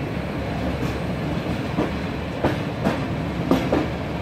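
CFR Regio passenger train running, heard from on board: a steady low rumble with about six uneven sharp clacks as the wheels pass over the track.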